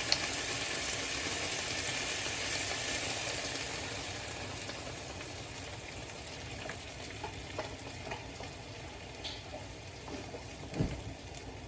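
Cubed chicken breast sizzling in a frying pan just after chicken broth is poured in, the sizzle gradually easing off over the first several seconds. A few light knocks near the end.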